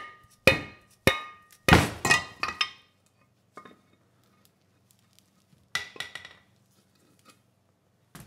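Sharp knocks with a brief metallic ring, about two a second, as the aluminium crankcase cover of a Subaru EX30 engine is knocked loose from the crankshaft; a quick flurry of knocks follows, then after a pause a second short cluster about six seconds in.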